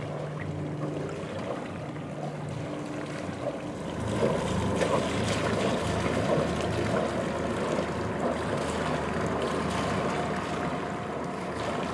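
A boat's motor running steadily under way, with wind and water noise over it. It gets louder and rougher about four seconds in.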